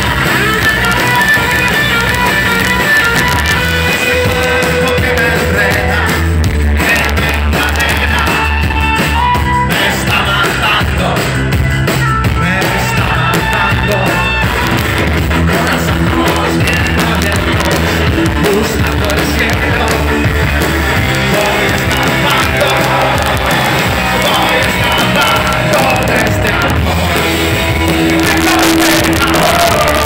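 A rock band playing loud live, with electric guitars, bass guitar and drums.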